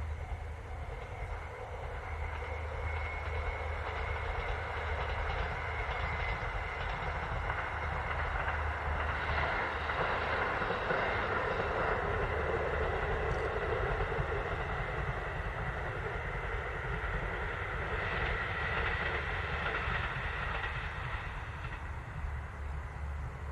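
KiHa 40 diesel railcar passing over a level crossing: its engine hum and the running noise of its wheels on the rails grow to their loudest about ten to fourteen seconds in, swell again briefly later, then ease off.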